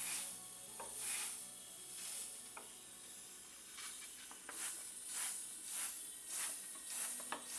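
A petrol fuel injector pulsed on and off from a battery, spraying injector cleaner in short hissing bursts. There are three bursts about a second apart, then a quicker run of about one every half second, with a few faint clicks between them.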